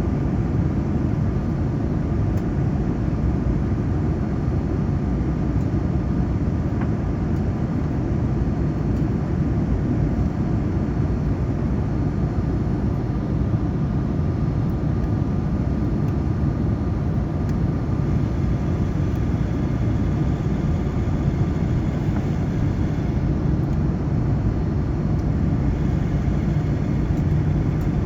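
Steady cabin noise of a Boeing 787 airliner in flight: an even low rumble of engines and airflow that stays unchanged, with a faint steady hum above it.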